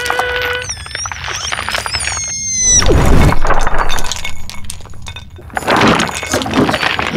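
Cartoon sound effects: high, wavering whistles about a second in, then a loud crash with a low rumble lasting about a second and a half, followed by scraping and rustling.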